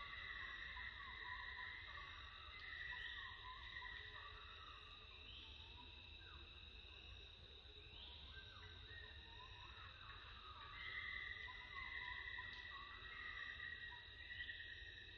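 Faint insect chorus: several steady high buzzing tones that start and stop in overlapping stretches every few seconds, over a low rumble.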